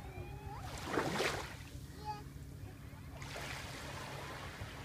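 Small waves washing in at the water's edge of a calm bay, about a second in and again around three seconds, over a steady low hum.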